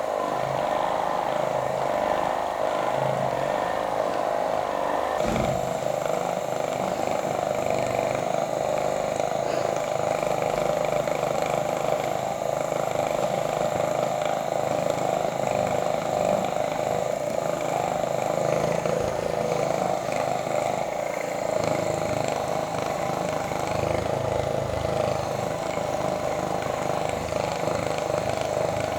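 A small motor running with a steady buzz.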